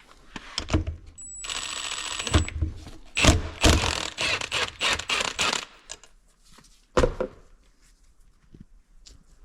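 Tools and metal engine parts being handled: knocks, clicks and scraping. There is a hiss of about a second early on, a dense run of clattering in the middle, and one sharp knock near the end.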